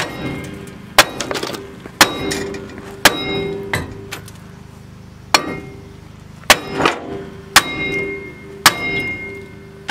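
Big hammer blows on a steel Chevy Express front spindle to break the lower ball joint loose: about eight hard strikes roughly a second apart, each with a metallic ring.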